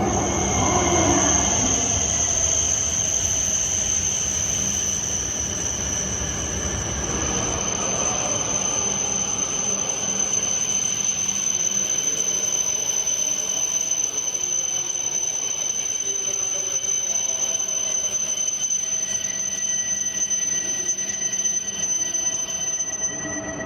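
Train running past a railway level crossing, its rumble fading over the first several seconds, with a steady high-pitched whine going on throughout.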